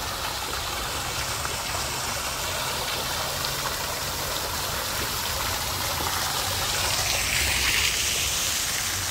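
Ornamental fountain running: a steady rush of water jetting up and splashing from its bowl down into the pool below.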